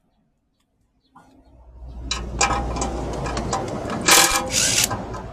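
A handheld power tool running in spurts, starting about a second in, as the bolts of a diesel engine's rear cover are undone. There is a louder, harsher burst about four seconds in.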